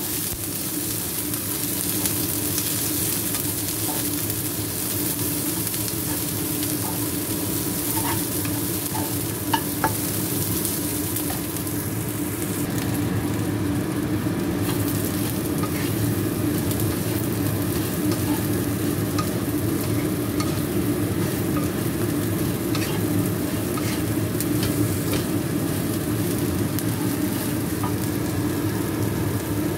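Chopped shallots, garlic, chilies and fried tempe cubes sizzling in oil in a nonstick frying pan, stirred with a wooden spatula that gives light taps and scrapes against the pan, over a steady low hum.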